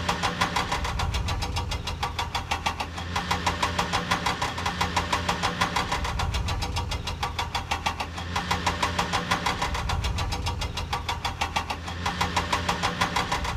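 Vehicle engine running at a steady idle, chugging in rapid even pulses.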